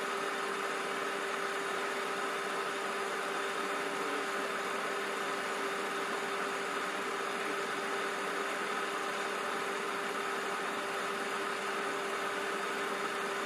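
A steady machine hum over an even hiss, with two constant tones and no change in level.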